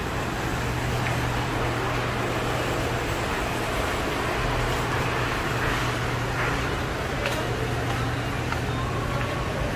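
Steady city street traffic noise with an even, low engine hum running underneath.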